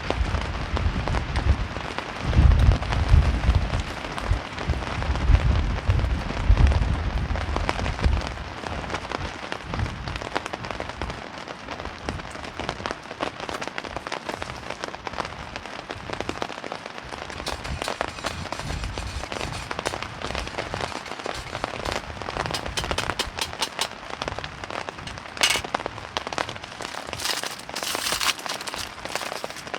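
Heavy rain and strong wind. Gusts buffet the microphone with a deep rumble over roughly the first eight seconds, then steady rain carries on with sharp, crackly drop hits that grow more distinct in the second half.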